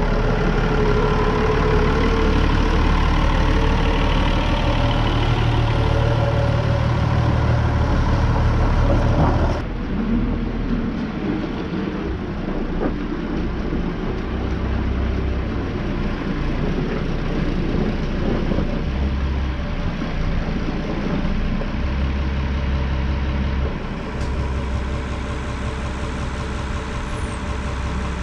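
Massey Ferguson 399 tractor's six-cylinder diesel engine running loud and close as the tractor drives past. About ten seconds in the sound cuts abruptly to a quieter tractor engine running further off while it manoeuvres a trailer.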